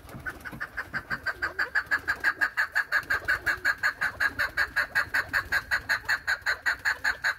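Chukar partridge calling: a fast, even run of short clucking 'chuk' notes, about six a second, kept up for some seven seconds.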